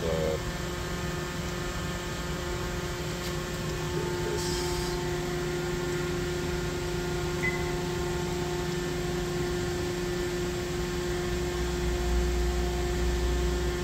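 DMG Mori NTX 1000 CNC mill-turn machine running, a steady hum with several steady whining tones, and a brief hiss about four and a half seconds in.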